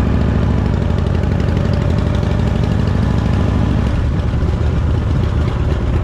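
Harley-Davidson Fat Boy V-twin engine running steadily with a deep, even rumble. The low end eases a little about four seconds in.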